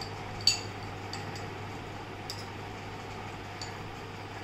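A steel spoon clinking against a small glass bowl while spooning out raw mango powder (amchur): a few light, separate clinks, the sharpest about half a second in.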